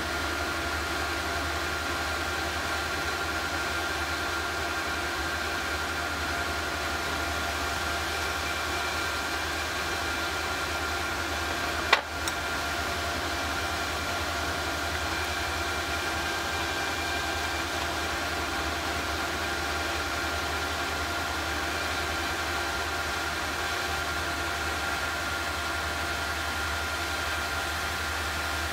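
Small induction heater running steadily while melting bronze in a graphite crucible: a steady electrical hum with several high whining tones over a hiss. One sharp knock about twelve seconds in.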